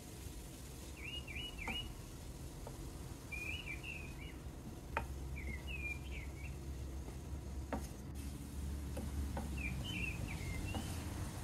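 A wooden spoon stirring vegetables in a nonstick frying pan, giving a few sharp taps on the pan, over a low steady hum. A small bird chirps short warbling phrases in the background every second or two.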